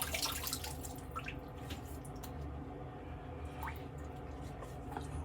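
Water dripping into a bathroom sink: a few scattered drops with small rising plinks.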